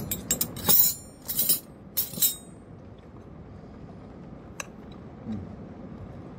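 Metal cutlery clinking against a dish during a meal: a quick cluster of bright clinks in the first two seconds, then a single click a little past halfway.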